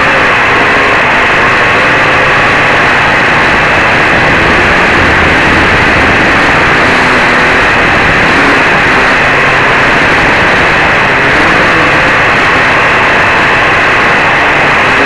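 A quadcopter's four DT750 brushless motors spinning 11x4.7 propellers, heard close up from a camera mounted on the craft: a loud, steady whir whose pitch wavers slightly up and down.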